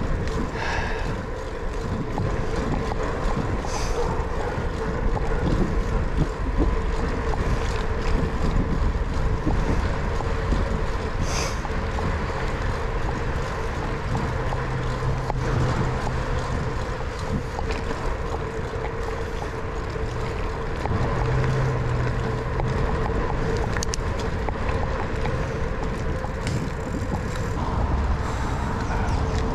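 Wind buffeting the microphone of a handlebar camera on a moving bicycle, with a steady hum underneath.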